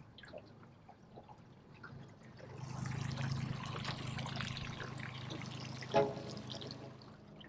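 Mercury outboard motor pushing a small aluminium boat away at low speed: a steady low engine hum with the churning hiss of prop wash, swelling about two and a half seconds in. A single sharp knock about six seconds in.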